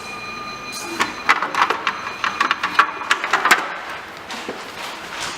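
Clicking and clattering of a wire binding machine's punch-waste tray being opened and handled: a run of quick sharp clicks from about a second in that stops after two and a half seconds. A high steady ring sounds for the first second.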